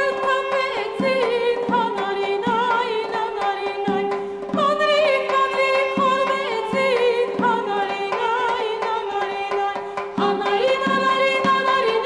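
A recorded Armenian folk song: a woman sings an ornamented, wavering melody over a steady held drone, with a hand drum keeping a slow beat. The singing breaks briefly between phrases twice, about four and ten seconds in.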